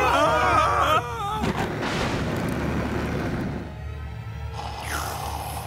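A group of cartoon voices yelling in alarm, followed by a loud noisy crash-like sound effect that lasts about two seconds. A short whoosh comes near the end, all over a steady background music score.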